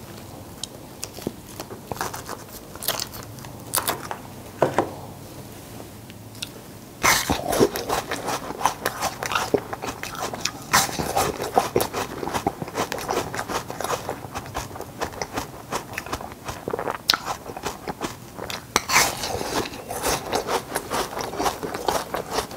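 Ice being bitten and crunched close to the microphone: from about seven seconds in, a dense run of loud cracking crunches. Before that, a few scattered clicks and cracks as a plastic ice-cube tray is worked.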